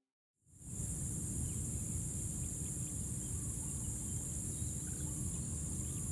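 Field ambience fading in about half a second in: a steady high-pitched insect chorus over a low rumble, with a few faint bird chirps.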